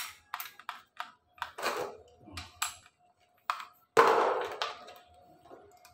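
A run of sharp metallic clicks and light clatter from a bit being swapped out of a drill for a screwdriver bit, with one louder knock about four seconds in and a faint ringing between clicks.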